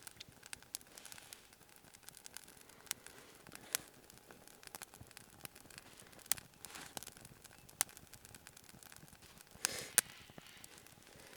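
Wood campfire crackling: scattered sharp pops roughly once a second, the loudest near the end, with a few short rustling swells.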